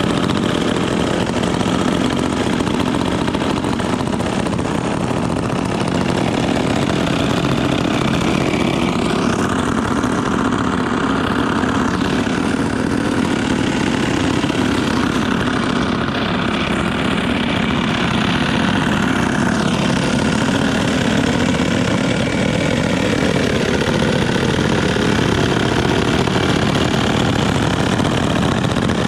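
Several vintage PM Canadien two-stroke chainsaws running at idle together. The engines make a loud, steady sound, and their pitch wanders a little through the middle.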